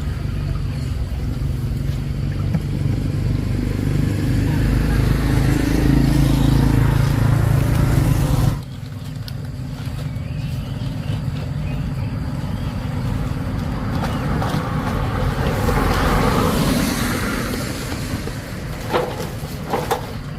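A small vehicle engine running and growing louder, then an abrupt cut to another stretch of engine running that swells and fades, with a few sharp knocks near the end.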